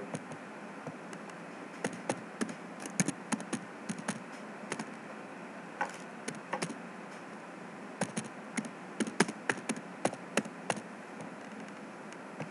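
Computer keyboard keystrokes as a line of text is typed, in bursts of quick clicks with short pauses between, over a steady low hiss.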